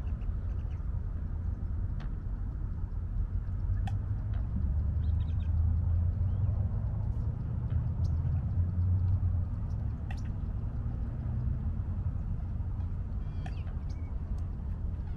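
Low, steady rumble of wind buffeting the microphone, a little stronger midway, with a few short bird calls now and then and some small clicks.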